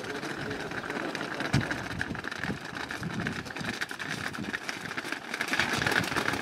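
A herd of bulls trotting and running on a paved lane, many hooves clattering in a dense, irregular patter, over a steady engine-like hum that grows louder near the end.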